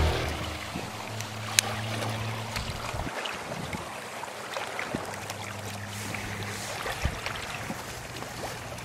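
Small wood fire crackling in a mesh fire stand while it is poked with a stick, with a sharp pop about one and a half seconds in. Under it run lapping water and a steady low hum.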